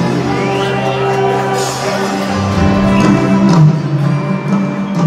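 Live band music with acoustic guitar, amplified through a stadium sound system and heard from among the audience.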